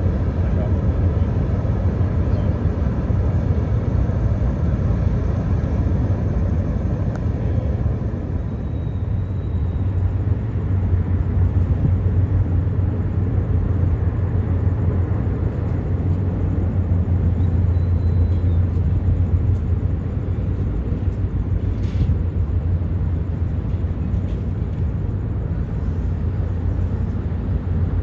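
The Lobo Marinho passenger ferry's engines running while it berths: a steady, deep low rumble with a faint hum above it, easing slightly about eight seconds in and building again.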